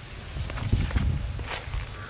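Soft thumps and rustling as a whole grilled chicken is set down and handled on a banana leaf, with a few sharp clicks near the middle.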